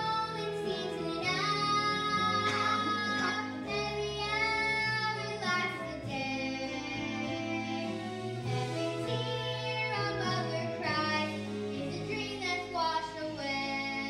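A young girl singing a solo show tune over instrumental accompaniment, the sung line moving from held note to held note.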